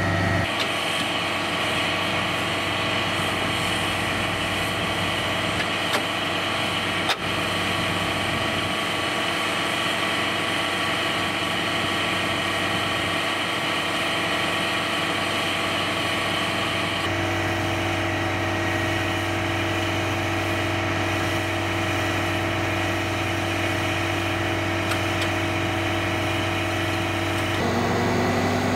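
Military truck's diesel engine idling steadily, with a rising tone coming in near the end.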